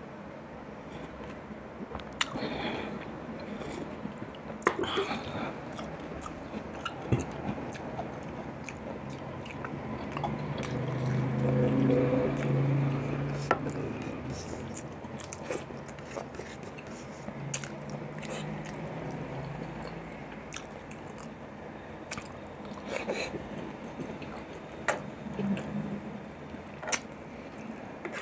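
Close-miked eating sounds of a man having soup and beef: chewing, sipping broth and sharp mouth clicks and smacks scattered throughout. Near the middle comes a low hum of his voice lasting a few seconds.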